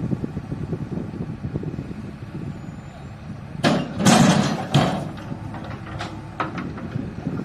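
Logs dropped from a JCB 3DX backhoe loader's bucket into a steel tractor trolley. A run of heavy thuds and clangs comes from about three and a half to five seconds in, the loudest near four seconds, then a few lighter knocks. Diesel engines run steadily underneath.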